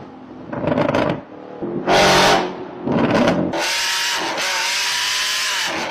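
A woman imitating a revving car engine with her voice: three short revving bursts, then a long hiss of about two seconds that cuts off suddenly.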